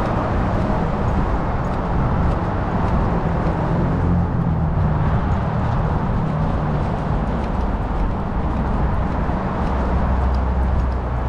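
Steady rumble of road traffic and outdoor noise picked up by an action camera strapped to a walking dog, heaviest in the low end, with faint light clicks throughout.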